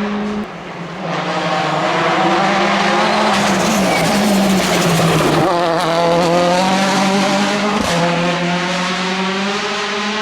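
Turbocharged World Rally Car engine at high revs, its pitch sagging and then climbing again about halfway through as the car slows and accelerates away, with steps in pitch at the gear changes. A rushing noise runs under it, and a short sharp crack comes about eight seconds in.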